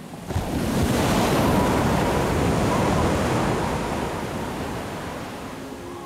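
Heavy surf crashing against a sea wall, a rushing wash of breaking water that swells up just after the start and slowly fades over the last couple of seconds.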